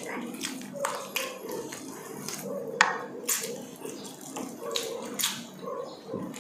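Wet chewing and lip-smacking of people eating grilled tuna with their hands, with short sharp smacks and clicks scattered throughout; the loudest smack comes a little under three seconds in.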